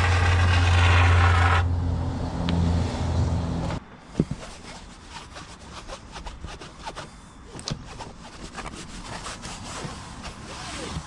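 A motor running with a steady low hum and noise over it, which cuts off suddenly about four seconds in. Then comes a run of scattered light clicks and knocks, like tools and materials being handled.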